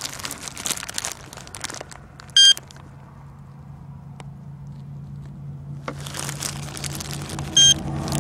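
Two short electronic beeps about five seconds apart from the radiation detector reading the rain sample, over crinkly handling noise. Underneath, a low vehicle engine hum grows louder toward the end.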